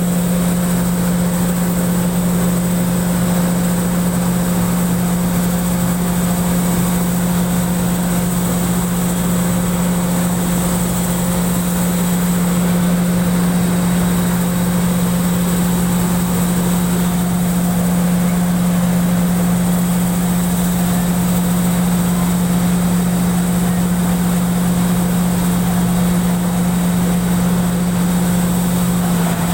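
Pan Charoen Kan Chang rice combine harvester running steadily, its engine and machinery making an even, unbroken low drone.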